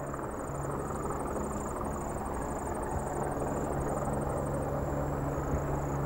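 Helicopter flying low, a steady drone of engine and rotor with a faint high whine.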